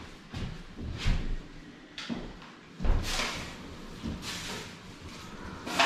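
A plastic bag rustling and kitchen cupboard doors and drawers being handled while rubbish is gathered from the cupboards, in several short bursts about a second apart.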